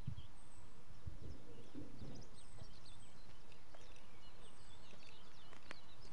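Wild songbirds chirping and calling over a steady outdoor hiss, with a few sharp clicks near the end.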